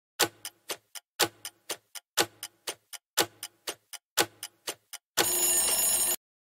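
Countdown timer sound effect. It ticks about four times a second, with a stronger tick on each second, for five seconds, then ends in a bright ringing alarm tone lasting about a second as the count reaches zero.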